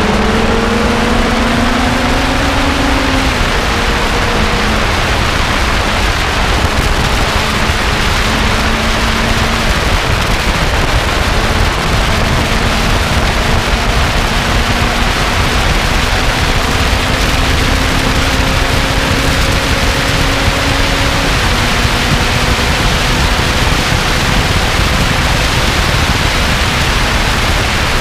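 Lotus car at full pace on a race track, heard from on board: the engine note climbs under acceleration, breaks for a gear change about three seconds in, then holds high and creeps slowly upward, half buried in loud wind and road noise.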